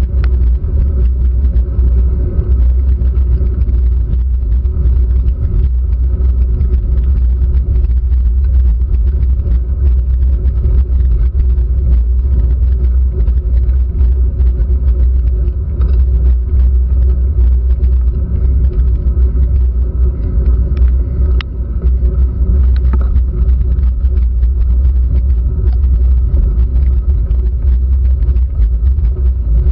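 Continuous low rumble from a handlebar-mounted GoPro Hero3 in its sealed housing, picking up road vibration and wind as a bicycle climbs a wet road. Many small ticks of rain hitting the housing run through it.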